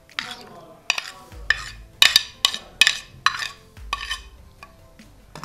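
A plastic spoon scraping and knocking against a plate as boiled potato cubes are pushed off into a bowl of yogurt, about ten sharp clicks and scrapes at an uneven pace.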